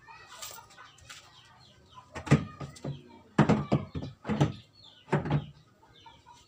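Heavy 15-inch speaker cabinets knocking and thudding against each other and the concrete floor as they are shoved into place side by side. One loud knock comes about two seconds in, then a quick run of heavy thuds over the next two seconds.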